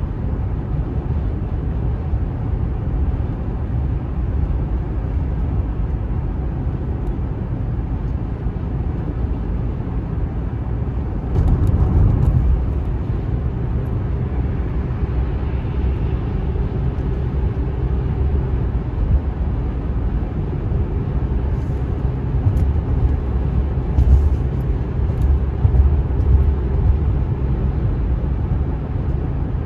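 Steady low rumble of road and engine noise inside a car driving at highway speed. It swells briefly a little before halfway, and there are a few short knocks in the last third.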